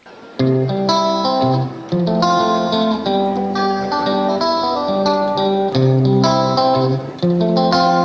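Background music: a plucked guitar tune that starts suddenly about half a second in and plays on with notes changing about every half second.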